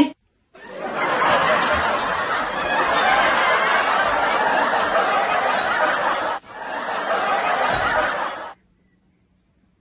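Audience laughter, a dense crowd laughing without single voices standing out, in two stretches: about six seconds, then after a sudden cut about two more, ending abruptly.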